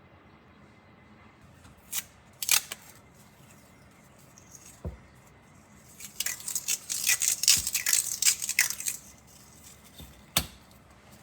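Workshop handling sounds while a knife handle is being fitted: a few sharp clicks and a dull knock, then a few seconds of crisp, rapid rustling and clicking in the middle, and a last click near the end.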